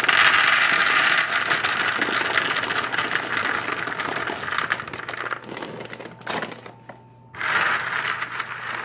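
Raw peanuts pouring from a plastic bag onto a parchment-lined metal baking sheet, a dense rattling patter that starts loud and thins out over about six seconds. After a short pause, the peanuts rattle again as a hand spreads them across the sheet.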